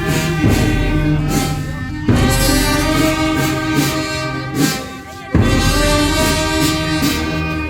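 Brass-and-woodwind procession band with drums playing a slow funeral march: phrases of held chords, each new phrase starting about two and five seconds in.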